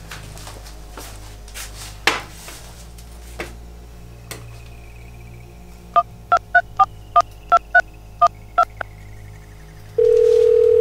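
Phone keypad beeping out a number, about ten short two-note dial tones in a quick run. Near the end a steady ringback tone starts on the line as the call rings through.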